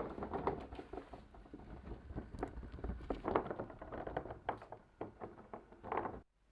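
Wooden balls rolling and clattering down a marble run: a rapid, irregular stream of clicks and knocks that cuts off suddenly near the end.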